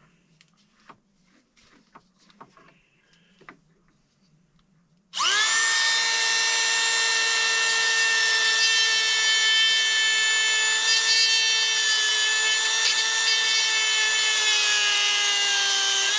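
Faint handling clicks, then about five seconds in a Dremel rotary tool fitted with a sanding disc switches on and runs at high speed with a steady high whine. Its pitch dips slightly near the end as the spinning disc is worked into the 3D-printed plastic to burn a hole through it.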